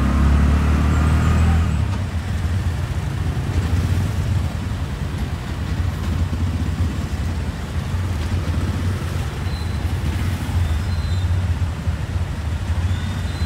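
Auto-rickshaw engine running steadily with the vehicle under way, a loud low rumble with road and street-traffic noise around it, heard from inside the passenger cab.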